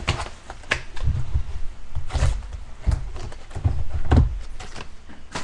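Handling noise from opening a pack of baseball cards: irregular rustling and clicking, with several dull knocks against the table.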